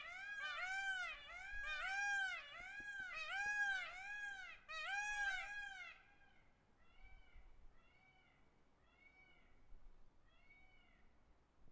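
Peacock calling in a rapid series of short calls, each rising then falling in pitch, about two a second. About six seconds in the calls become much fainter and carry on at the same pace until near the end.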